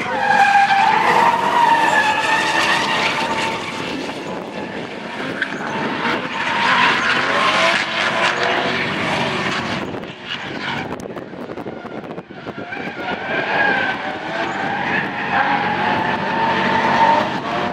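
Two drift cars sliding in tandem: engines revving hard, their pitch rising and falling with the throttle, over a steady hiss of spinning, smoking tyres. The sound fades as the cars move away about ten seconds in and grows again near the end.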